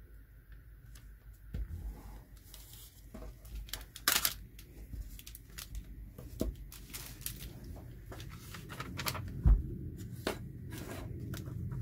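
Clear protective plastic film being pulled back from the sticky diamond painting canvas and paper sheets being handled: crackling, peeling and rustling in short strokes. A dull thump late on is the loudest sound.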